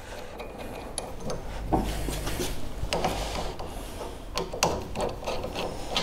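Screws of a tow-hitch lock's mounting bracket being worked with an Allen key: scraping and rubbing with scattered sharp clicks, and a low steady hum coming in about a second and a half in.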